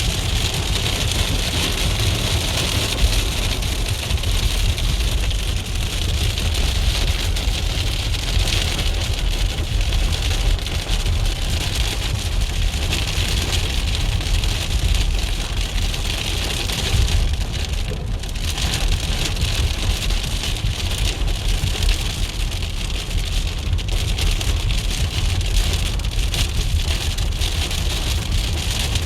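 Rain falling steadily on a moving car, with a constant low road and engine rumble, heard from inside the cabin.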